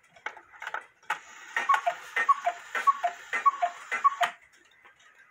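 E. Schmeckenbecher one-day cuckoo clock ticking, then calling "cuckoo" about five times, each call a higher note followed by a lower one with a click of the mechanism, before falling quiet near the end.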